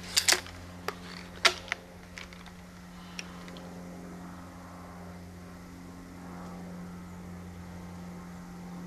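Handling clicks and knocks from the Siege crossbow as it is readied and shouldered, several in the first two seconds, then only a steady low hum while it is held aimed.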